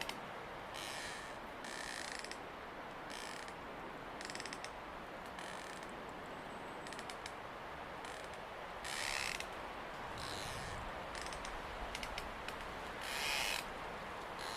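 Wind sound: a steady rushing noise with irregular short gusts of higher hiss coming and going every second or so.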